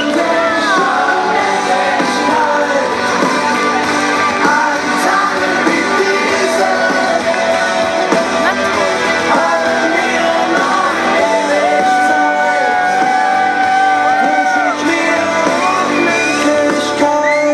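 Music: a German-language pop song, in a passage with singing and shouted crowd-like voices over the band.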